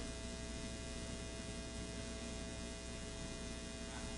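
Low, steady electrical hum with a faint hiss from the sound system, unchanging throughout.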